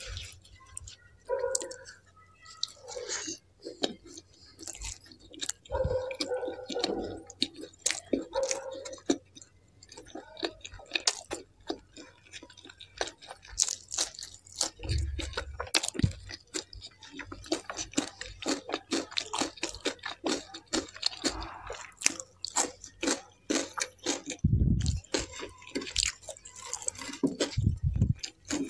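Close-miked chewing of butter naan dipped in kadhai paneer gravy: dense small clicking mouth sounds, with a few dull low thumps along the way.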